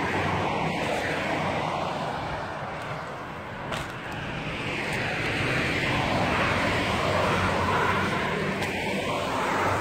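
Road traffic passing: a steady rush of tyres and engines that dips a little about a third of the way in, then swells again.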